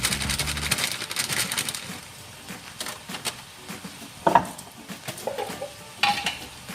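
Spices frying in oil in a pan while a spoon stirs and clinks against the metal, with a sharp ringing clink about four seconds in. The sizzle is loudest at the start, where background music also plays.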